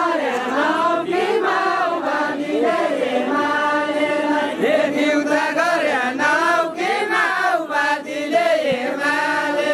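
A group of men singing a Deuda folk song together, several voices in unison with long held, wavering notes.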